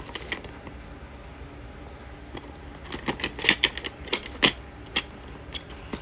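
Small balisong knives clicking and clacking against each other and their holder as they are handled and fitted into place: a few scattered clicks, then a quick flurry of sharp clacks about three to four seconds in.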